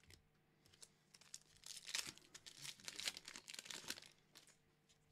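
Pokémon booster pack's foil wrapper crinkling and tearing as it is opened: a faint run of crackles for about three seconds, starting a second and a half in.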